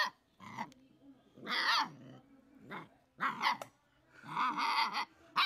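A puppy barking repeatedly, about six short barks spaced roughly a second apart.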